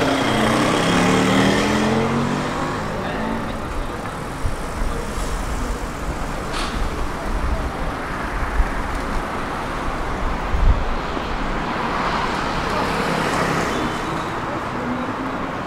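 City street traffic: motor vehicles passing close by with a low rumble of engine and road noise, and a few short knocks along the way.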